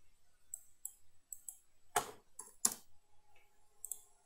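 Computer mouse and keyboard clicks at a desk: scattered light clicks, several in quick pairs, and two louder taps about two and three seconds in.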